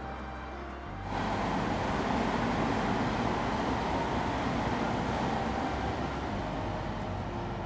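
A vehicle passing by: a steady rushing traffic noise that comes in abruptly about a second in and eases off near the end.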